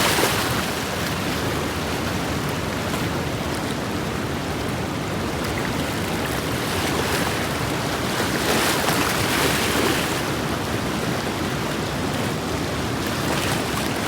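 River water washing and rushing, with wind on the microphone; a steady rush that swells several times.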